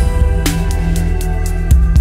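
Background music with deep bass and percussion strikes.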